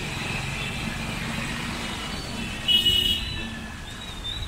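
Steady road traffic and engine noise while driving, with a short, loud vehicle horn blast about three seconds in.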